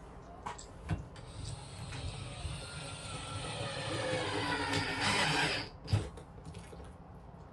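Cordless drill driving a screw through a sliding cargo tray's metal rail into the cargo bay floor: the motor whines for about four and a half seconds, getting louder as the screw goes in, then stops, with a sharp knock right after.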